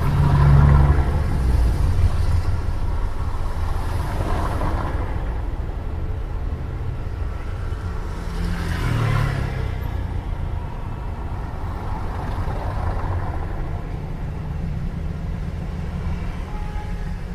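City street traffic ambience: a steady low rumble of traffic, with several vehicles passing that swell and fade about a second in, around four seconds, near nine seconds and near thirteen seconds.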